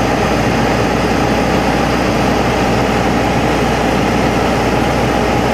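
Steady engine and airflow noise of an aircraft on final approach, heard from inside the aircraft, with a steady mid-pitched hum running through it.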